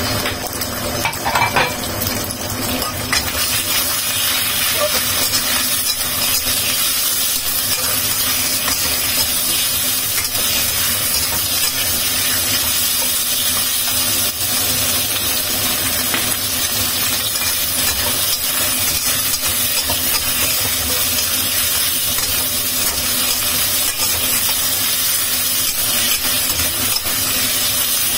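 Sliced beef frying in oil and garlic in a hot wok, giving a steady sizzle. It is stirred and tossed with a metal spatula.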